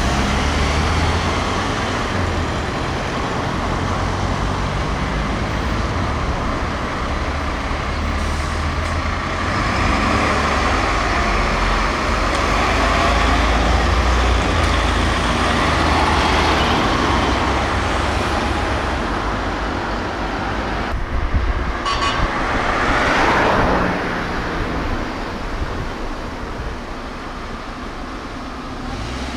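Fire engines' diesel engines running and driving past on a street, with road traffic noise. A deep engine rumble dominates and eases about two-thirds of the way through, with a brief louder rise just before that.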